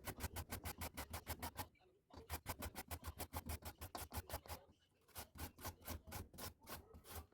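Papaya being grated into shreds: quick, even scraping strokes, about six a second, with two short pauses, one about two seconds in and one a little before five seconds.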